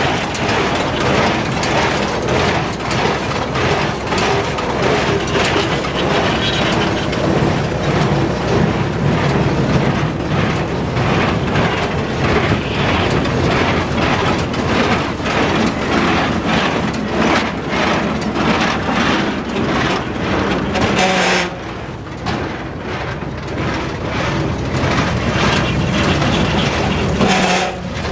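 IHC 440 square baler running, tractor-driven, with its plunger knocking in a steady even rhythm over the tractor engine. About three-quarters of the way through the knocking stops and only the engine runs on.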